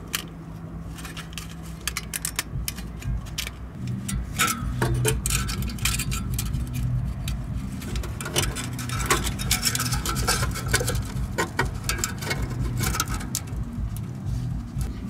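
Slit metal exhaust repair bandage and its hose clamp being handled and wrapped around an exhaust pipe: irregular metallic crinkling and clinking, over a low steady hum.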